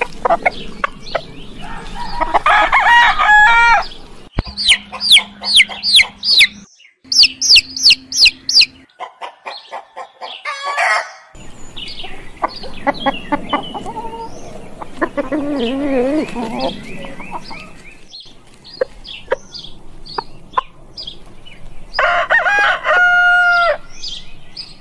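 Chickens in several short clips cut one after another: hens clucking, chicks giving quick repeated high peeps, and a rooster crowing near the end.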